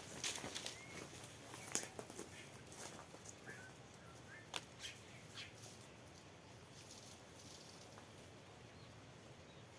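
Faint scattered rustles and clicks over the first five seconds, with a few short, faint bird chirps about a second and three and a half seconds in, then quiet rural outdoor ambience.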